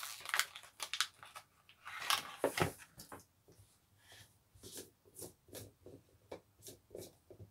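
Crinkling of a clear plastic bag as a small plastic diffuser is unwrapped, then a string of light clicks and taps as the diffuser is handled.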